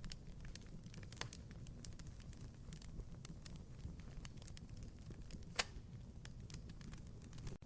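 Wood fire crackling in a fireplace: irregular small crackles and snaps over a low steady rumble of the flames, with one sharper pop about five and a half seconds in.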